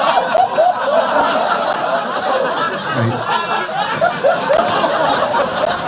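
People laughing: a run of short repeated "ha" sounds, about three a second, over a steady wash of general laughter.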